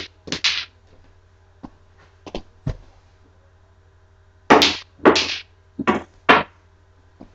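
Tabletop mini pool table in play: the cue strikes the balls and they knock against each other and the cushions. There are two loud knocks at the start, a few light clicks, then four loud knocks in the second half.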